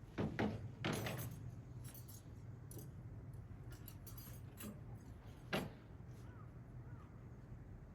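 Light knocks and metallic clinks: a cluster in the first second or so and a single sharper knock about five and a half seconds in.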